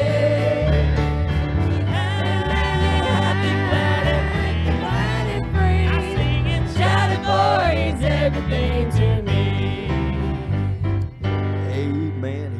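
Gospel worship song: singing over a band with a stepping bass line, the music fading out near the end.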